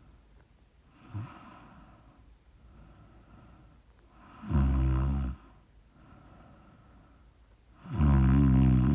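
A woman snoring: a short faint snort about a second in, then two loud snores about three and a half seconds apart, each about a second long, with soft breathing between them.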